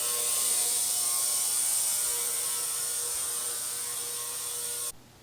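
Ultrasonic cleaner running with watch parts in ammoniated watch cleaning solution: a steady, even high hiss with a thin whine, cutting off abruptly near the end.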